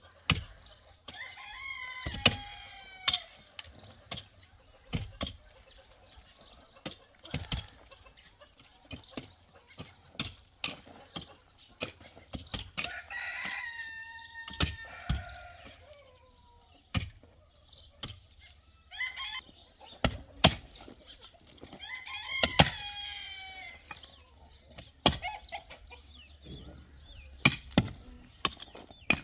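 A pickaxe strikes hard, stony ground again and again in sharp knocks, with shovels scraping and stones clattering. A rooster crows several times, each crow a couple of seconds long and falling in pitch at the end.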